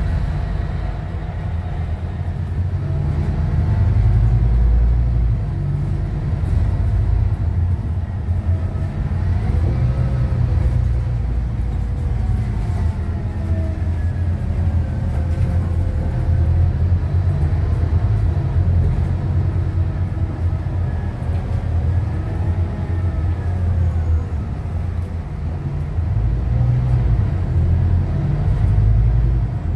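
Inside a moving bus: steady low engine and road rumble, with a whine that rises and falls as the bus speeds up and slows down.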